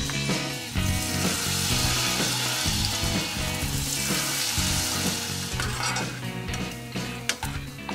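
Batter bits with dried shrimp deep-frying in 180°C oil: a dense sizzle that swells about a second in and thins to scattered crackles near the end.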